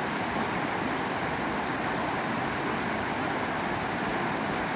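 Shallow rocky river rushing over stones in white-water rapids: a steady, even rush of water.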